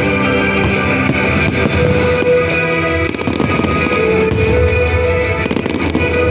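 Loud music, with sustained notes and what sounds like guitar, played over the popping and crackling of fireworks bursting throughout.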